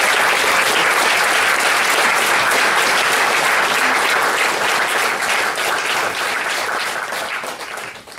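Audience applauding steadily, the clapping thinning out and dying away near the end.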